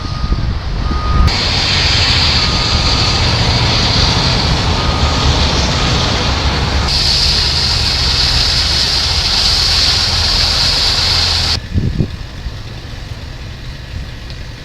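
Heavy construction vehicle running at a steady low rumble, its backup alarm beeping several times during the first six seconds, under a loud steady hiss. The whole sound drops off abruptly to a much quieter background about twelve seconds in.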